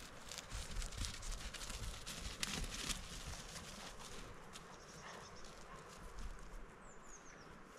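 Rustling and sharp clicks in grass, busiest in the first three seconds and then thinning out, over a low rumble. A few faint, quick, falling bird chirps come near the end.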